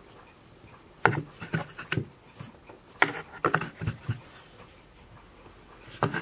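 A cat batting with its paw at a fur-ball teaser toy from inside a cardboard box: irregular light knocks and rustles against the cardboard, in two flurries and once more near the end.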